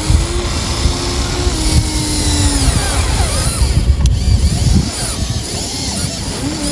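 Electric gear motors of a Huina 1593 radio-controlled excavator whirring. A motor whine shifts in pitch and stops a little under halfway through, over a steady low rumble.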